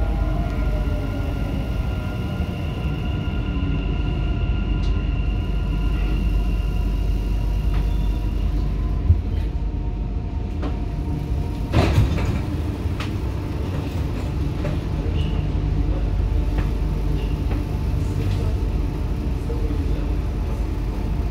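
Dubai Metro train heard from inside the carriage: steady low rumble with an electric whine that fades out as the train comes to a stop at the station. A loud clatter about halfway through as the doors open, then a steady rumble while it stands.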